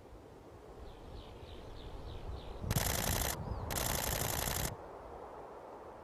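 Camera shutter firing in two rapid continuous-shooting bursts, a short one and then a longer one about a second long, with a brief pause between. Before them, a string of faint, short falling calls from black-necked cranes.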